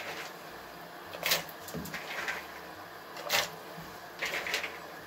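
Handfuls of soaked beans dropped into a pot of hot water, each landing with a short splash, about one a second.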